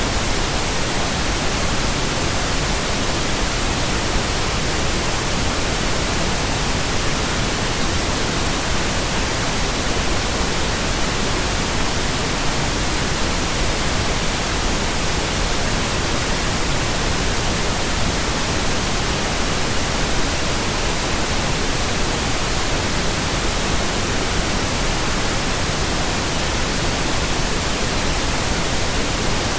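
Steady, unchanging pink noise: an even hiss spread across all pitches.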